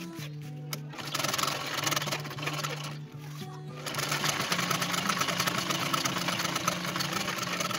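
Sewing machine running, stitching a webbing strap onto bag fabric in a fast, even rhythm, easing off briefly about three seconds in before running on. Background music plays underneath.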